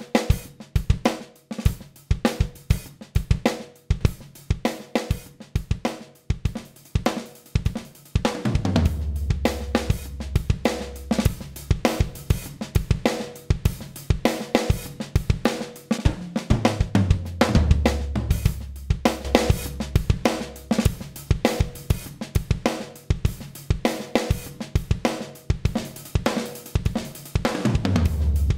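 Drum kit playing a steady groove of kick, snare, hi-hat and cymbals, recorded for a demo of a 1176 'Blue Stripe'-style compressor, the Black Lion Audio Bluey 500. About eight seconds in a bass part joins with long low notes.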